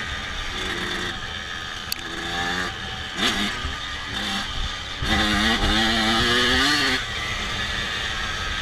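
Dirt bike engine revving: a few short blips of throttle, then a longer rev rising in pitch about five to seven seconds in, over a steady running noise.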